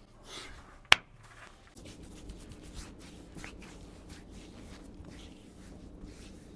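A single sharp crack about a second in, a spinal joint popping under a chiropractic adjustment, followed by a few faint clicks.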